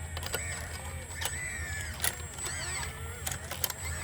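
Sumitomo SH120A3 excavator working: its engine runs steadily under a series of high squeaks and sharp clicks from the moving machine.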